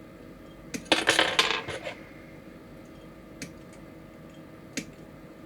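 Small hard plastic model-kit parts and runners clattering on a table for about a second, with a few single sharp clicks before and after.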